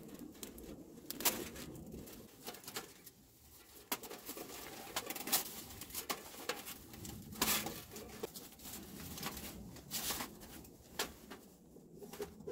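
Gloved hands rustling and crinkling a sheet of fine mesh netting as it is pulled over the open end of a metal stovepipe to make a spark catcher, with irregular light clicks and taps against the pipe.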